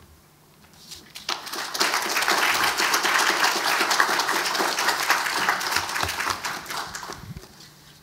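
Audience applauding: the clapping starts about a second in, swells quickly, and fades away near the end.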